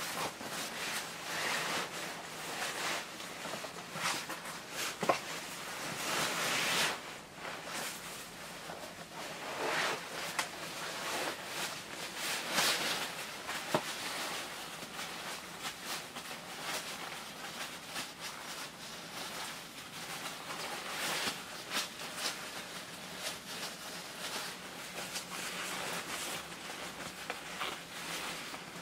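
Shiny nylon John Deere snowmobile suit and nylon jacket rustling and swishing as the suit is pulled on, in irregular bursts of swishing with a few sharp clicks.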